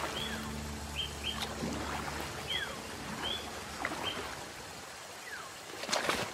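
Forest birds calling: short, high chirps repeating about once a second, with a few falling whistled notes. Near the end there is a brief splash as an Asian elephant's foot steps into shallow river water.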